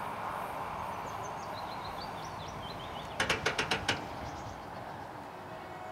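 The noise of a just-passed train fades away, with a small bird chirping. About three seconds in, the level crossing gives a quick run of six sharp, evenly spaced metallic strikes as its barrier arms come fully upright.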